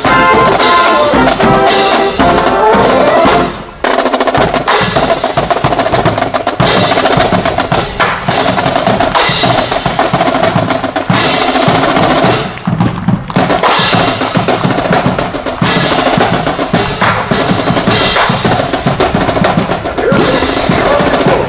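Military marching band: brass and drums play until about three and a half seconds in, then after a brief pause the drum line carries on alone with a marching cadence on snare and bass drums.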